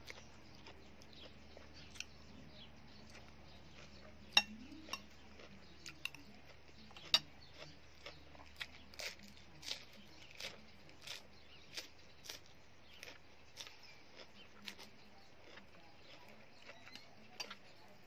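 Eating at close range: a few sharp clinks of a spoon against a plate and chewing with wet mouth clicks, coming about every half second in the middle stretch.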